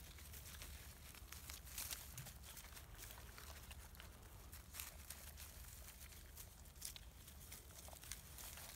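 Near silence with faint rustling and scattered soft clicks of Labrador puppies shuffling on dry grass and leaves as they nurse, a few slightly louder crackles spread through, over a low steady rumble.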